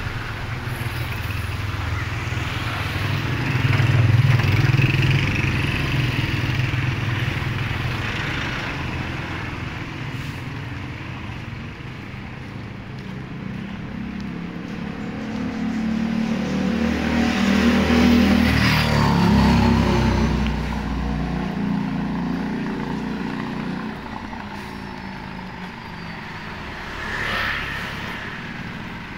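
Street traffic on a wet road: motor vehicles passing one at a time. The loudest swells up around the middle and fades with its engine pitch dropping as it goes by, and a smaller one passes near the end.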